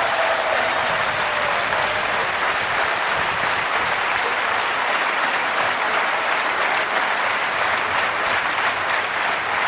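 A large crowd in stadium stands applauding, with steady sustained clapping.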